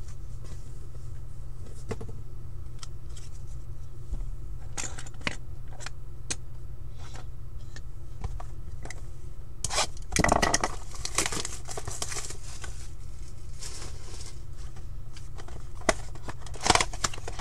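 Plastic shrink wrap being torn and crinkled off a trading card box, in short bursts about ten seconds in and near the end, with light clicks and taps of handling the box between. A low steady hum runs underneath.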